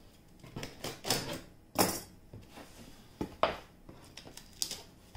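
Handling noises: a series of short knocks, clatters and rustles as a roll of tape and a pair of scissors are picked up and set down on a board. The loudest comes about two seconds in.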